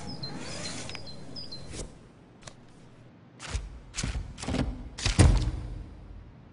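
Hands handling small objects on a tabletop: a short run of knocks and thuds in the second half, the loudest about five seconds in.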